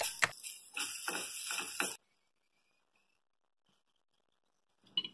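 Shredded potatoes sizzling in a frying pan while a wooden spoon stirs and scrapes them, with several short scraping clicks. The sound cuts off suddenly about two seconds in, and a few faint clicks come near the end.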